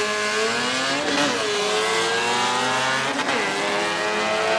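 An engine running under changing throttle, its pitch climbing and then dropping sharply about a second in and again after about three seconds.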